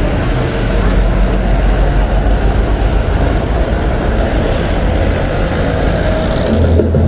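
Street traffic: cars and a motorbike passing on the road, heard as a steady engine and tyre rumble.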